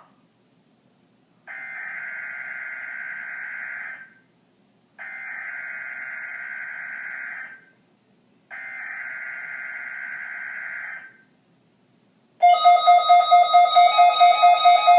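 NOAA Weather Radio emergency alert test signal: three buzzy digital header bursts, each about two and a half seconds long with short gaps between them. About twelve seconds in, a loud pulsing warning alarm tone starts.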